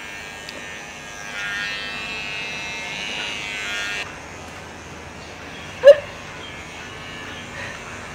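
Electric hair clipper buzzing steadily, then switched off suddenly about four seconds in. About six seconds in comes a single short, loud yelp, the loudest sound here.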